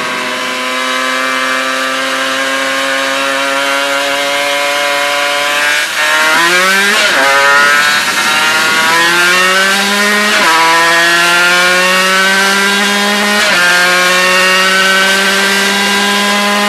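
Aprilia RS250's two-stroke 90° V-twin on LUFO racing exhausts, accelerating up through the gears from first. The engine note climbs steadily in pitch in each gear and drops sharply at each of three upshifts.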